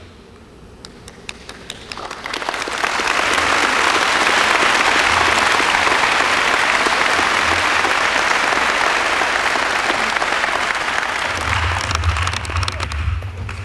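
Large audience clapping. A few scattered claps build into full, steady applause about two seconds in, which thins back to scattered claps near the end.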